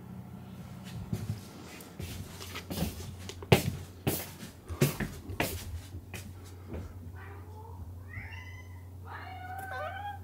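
Domestic cat meowing: a run of short calls that slide up and down in pitch over the last three seconds or so, after a scatter of light knocks and clicks.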